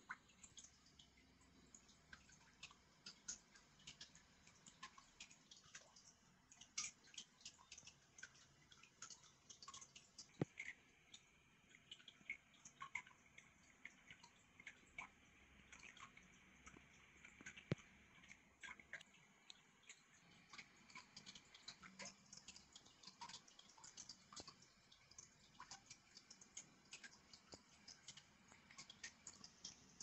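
Faint, scattered small clicks and soft paper rustles from a thin user-manual booklet being handled and its pages turned.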